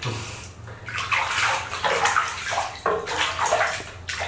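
Water splashing and sloshing in a plastic washbasin as hands scoop and rub it over a baby monkey, in uneven surges.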